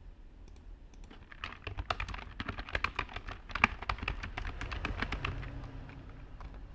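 Typing on a computer keyboard: a quick run of keystrokes starting about a second and a half in and tailing off a second before the end, over a low background rumble.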